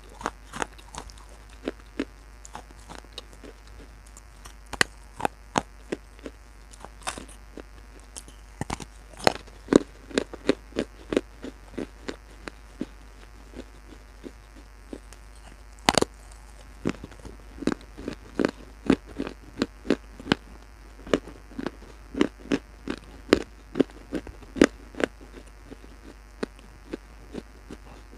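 Close-miked chewing of baked clay pot pieces: sharp, irregular crunches, with runs of quick chewing strokes about a third of the way in and again in the second half.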